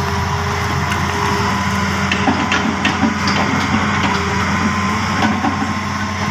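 Hitachi 210F excavator's diesel engine running steadily under hydraulic load, with a run of sharp cracks and knocks from the bucket breaking and chipping oil palm trunk wood between about two and five seconds in.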